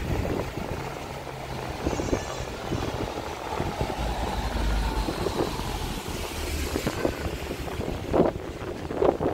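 A small flatbed truck driving past on a narrow town street, its engine rumble at its strongest about halfway through as it goes by.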